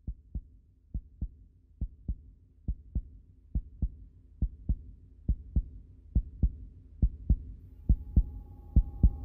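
Heartbeat sound effect: a low double thump, lub-dub, repeating a little under once a second and growing louder. Near the end a steady high tone joins it.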